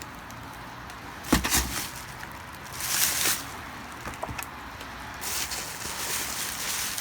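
Books being handled during an unboxing: two sharp knocks a little over a second in, a brief rustle around three seconds, then a few light taps.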